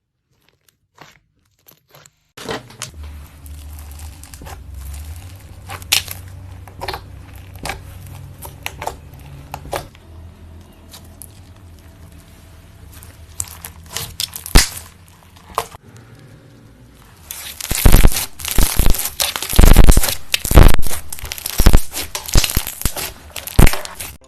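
Slime being squeezed and stretched by hand, crackling and popping. Scattered crackles come over a low hum at first, and from about seventeen seconds in the crackling turns loud and dense in repeated spells.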